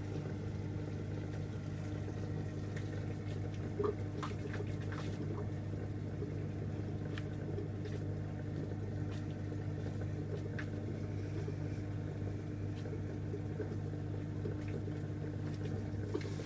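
Beko washing machine on a cottons 60°C wash, its drum at rest between turns: a steady low hum with faint trickling water and a few small clicks.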